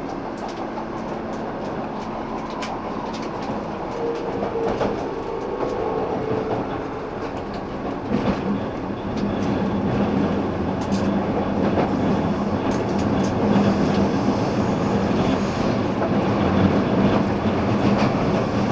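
Running noise inside the cabin of a 185-series electric train: steady rumble of wheels on rail with scattered clicks of the wheels over rail joints. It grows louder about eight seconds in, and a low steady hum joins it from then on.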